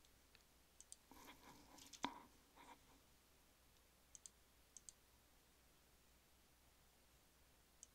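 Faint computer mouse button clicks and a few keystrokes, with one sharper click about two seconds in and quick pairs of clicks around four and five seconds.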